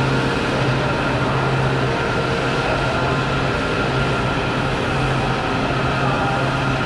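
Washington metro train at the platform giving off a steady hum: a strong low tone with fainter steady tones above it over a hiss of running machinery.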